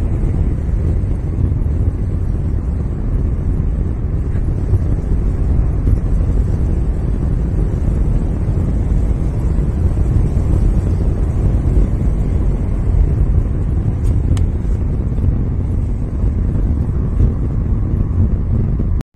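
Steady low rumble of a car driving on a paved country road, engine and tyre noise heard from inside the cabin.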